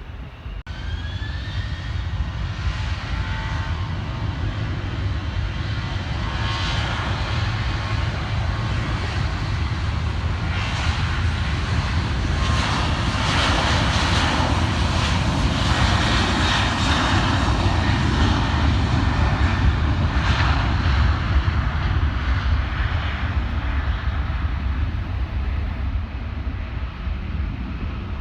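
Jet airliner's engines passing on the runway: a deep rumble and rushing noise that builds, is loudest around the middle, then eases off.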